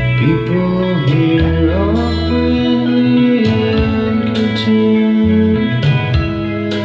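Music played back from a cassette tape on a Pioneer CT-W616DR deck: a song with guitars, including gliding slide-guitar notes, and a singing voice.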